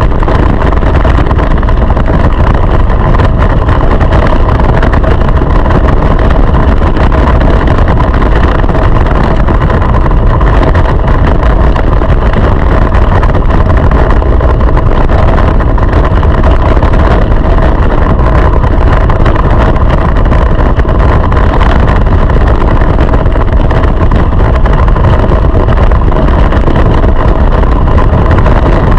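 Go-kart engine running loud and close to the on-board camera at a fairly steady pitch, with heavy low rumble from wind on the microphone.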